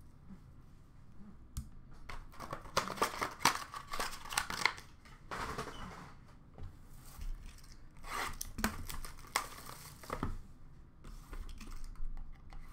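Foil trading-card pack wrappers and card packaging crinkling and tearing as they are handled, in several irregular bursts: one from about two seconds in, another around eight seconds in, and a last one near the end.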